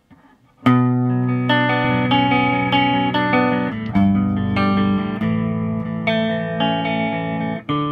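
Grover Jackson Dinky electric guitar with a bridge humbucker, played through an amplifier: picked chords whose notes ring on into each other, starting about half a second in, with a short break just before the end.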